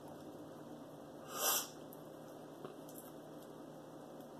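A single short, sharp burst of breath, like a sniff or small sneeze, about a second and a half in, the loudest sound here. Around it, faint clicks as fingers pick the shell off a cooked shrimp.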